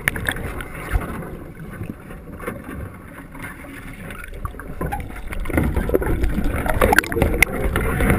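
Muffled underwater sound picked up by a submerged camera: water churning and bubbling around the capsized HUET training cabin as trainees move inside it, with a few knocks on the cage. It grows louder from about five and a half seconds in.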